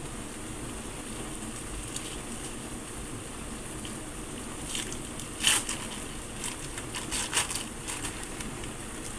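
A faint steady sizzle of shredded chicken in a skillet on low heat. From about five seconds in comes a run of sharp scrapes and clicks as cream cheese is handled and worked into the pan.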